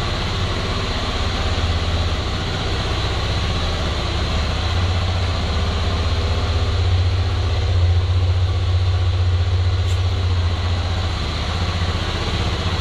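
A steady low machine hum, like a motor or engine running, holding an even level throughout.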